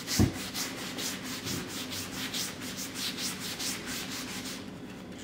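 A cloth rag rubbing oil stain into a solid-wood cutting board in quick back-and-forth strokes, about four a second, that die away near the end. There is a single light knock just after the start.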